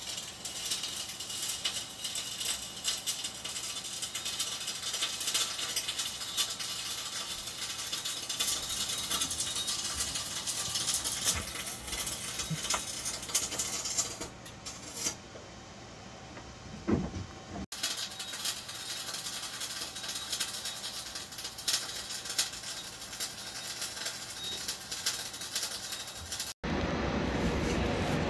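Crackling, hissing noise of hot metalwork inside a ship's steel compartments. It is a steady dense crackle full of small clicks, and it changes abruptly twice, about 18 and 27 seconds in.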